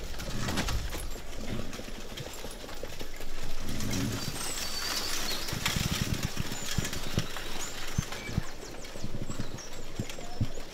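Horse hooves clip-clopping as a horse-drawn carriage moves along, irregular knocks over a low noisy bed.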